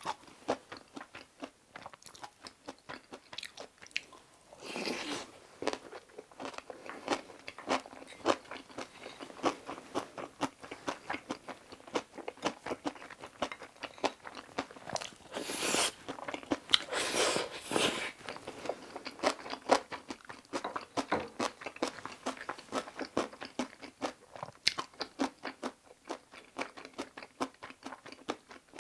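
Close-miked chewing of a mouthful of cream kimchi fried rice, with many small wet mouth clicks and crunches. A few longer hissing breaths or slurps come about five seconds in and twice around the middle.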